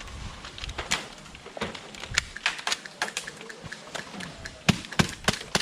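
Airsoft guns firing in an exchange, a scatter of sharp snapping shots at an uneven pace, coming quicker and louder near the end.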